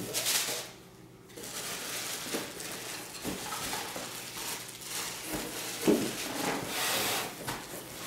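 Plastic wrapping and cardboard packing rustling and crackling as they are handled, with a few soft knocks from a boxed item being moved.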